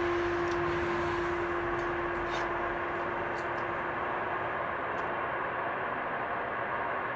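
Ambient soundtrack noise: a steady hiss with one low held tone that slowly fades away over about four seconds, and a few faint clicks.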